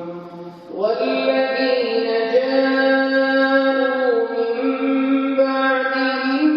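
A man reciting the Quran in melodic tajweed style, holding long ornamented notes. There is a short breath pause just before a second in, then one long sustained phrase.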